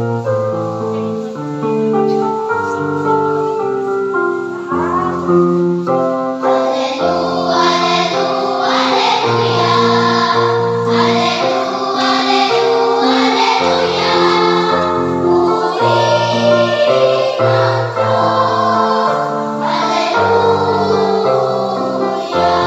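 Choir at rehearsal, many voices singing together in held chords; the singing grows fuller about six seconds in.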